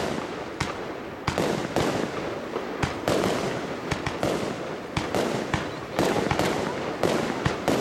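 Firework shells bursting in rapid succession: a string of sharp bangs, about one or two a second, with crackling hiss trailing after each.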